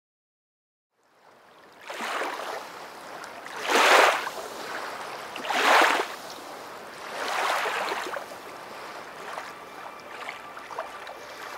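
Small waves washing onto a rocky shore, fading in about a second in. They come in swells roughly every two seconds, and the loudest two are about four and six seconds in.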